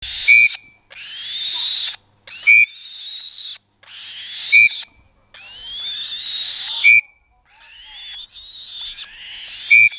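Young black-shouldered kite chick giving long wheezy begging calls that rise in pitch, one after another. Between the calls comes a short shrill whistle-like beep about every two seconds, louder than the calls.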